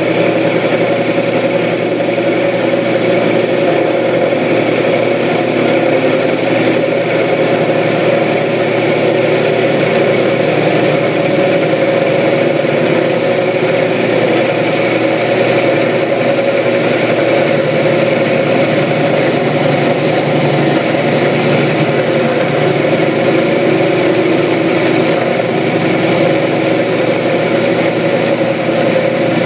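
12-inch Craftsman (Atlas) metal lathe running steadily while a parting-off tool in a quick-change tool post cuts into a spinning metal workpiece. It is a steady machine drone with a higher steady whine over it, unchanging throughout. The cut is going through, though not cleanly: the tool is not making nice chips.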